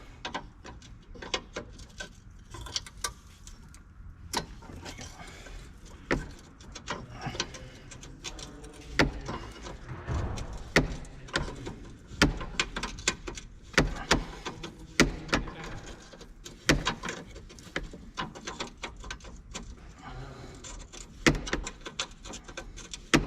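Spanners clinking and knocking against metal while brake line fittings are undone, with many sharp clicks at irregular intervals.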